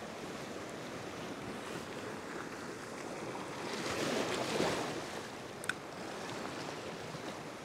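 Ocean swell washing over and around a rock shelf, a steady wash that surges up to a louder rush about four seconds in and then eases. A single brief click sounds near the end.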